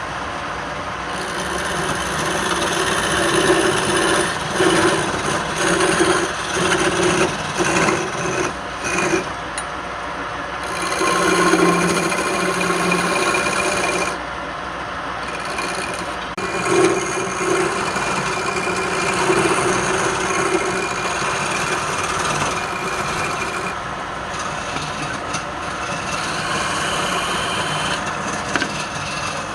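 Wood being worked on a running woodturning lathe: a tool scraping against the spinning wood in repeated passes, over the steady hum of the lathe.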